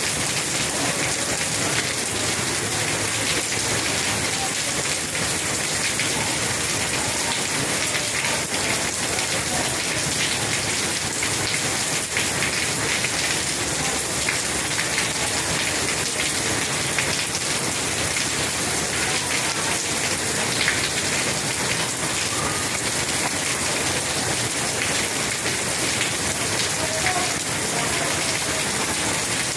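Steady rain falling, a dense, even patter of many drops hitting surfaces, with no let-up.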